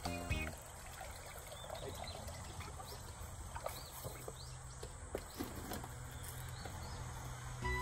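Quiet outdoor ambience with small birds chirping faintly, and the soft trickle of sake-lees water poured from a bowl onto a heap of rice bran.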